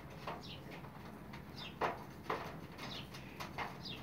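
PVC electrical tape being pulled off the roll in short rasping pulls while wrapping a wire joint, the two loudest about two seconds in. Birds chirp in the background.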